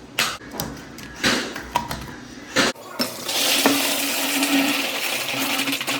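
A few short knocks and handling noises, then about halfway in water begins rushing hard and steadily from a shower valve, a loud hiss with a low hum under it, as the valve with its newly fitted Moen cartridge is run.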